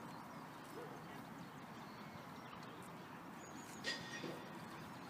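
Steady outdoor background noise, with one brief high-pitched squeak about four seconds in.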